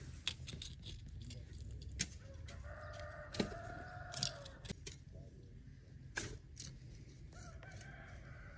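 A rooster crowing twice: one long crow starting about two and a half seconds in, and another starting near the end. Under it, a small hand hoe scrapes and chops into garden soil in scattered sharp knocks.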